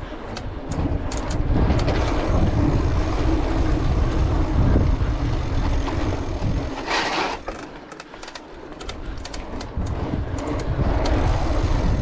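Cross-country mountain bike rolling fast over tiled paving: tyre rumble and wind buffeting on the bike-mounted microphone, with scattered clicks and rattles from the bike. A short hiss about seven seconds in, then the rolling noise drops off for a second or two before picking up again.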